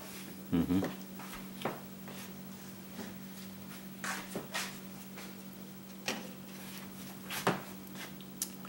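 Kitchen handling noises: a few scattered knocks and clicks, the loudest a dull thump just over half a second in and a sharp click near the end, over a steady low hum.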